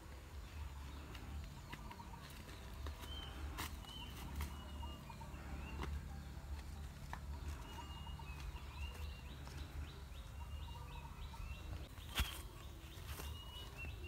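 Short, high bird chirps repeating again and again over a steady low rumble, with a few sharp clicks, the loudest near the end.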